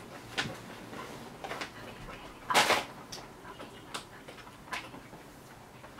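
Someone chewing a dry, jerky-style dog treat: scattered small clicks, with one louder, noisy rush about two and a half seconds in.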